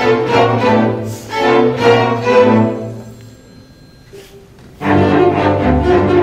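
String orchestra of violins, cellos and basses playing, in phrases that swell and fade. The sound dies away about three seconds in, leaving a short quiet gap. Just before five seconds the strings come back in loudly, with low bass notes underneath.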